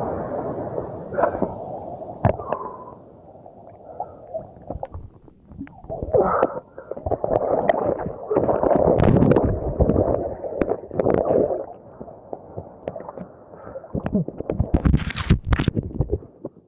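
Seawater sloshing and gurgling around a camera held at the ocean surface, dull and muffled as waves wash over the lens. It comes in uneven surges with quieter gaps, and a few sharp splashes crackle near the end.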